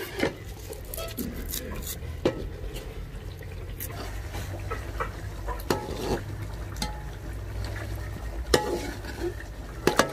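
Metal cooking pot and utensils knocking and clinking now and then, with stirring, over a low steady hum.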